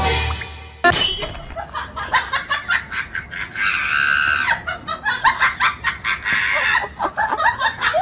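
People laughing with excited voices, over faint music, with a sustained shrill cry about halfway through.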